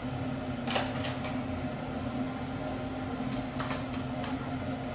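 Steady low mechanical hum of a running room appliance, with a few brief handling noises over it.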